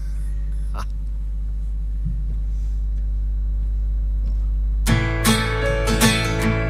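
A steady low hum, then a little under five seconds in an acoustic guitar starts strumming rhythmic chords as a song opens.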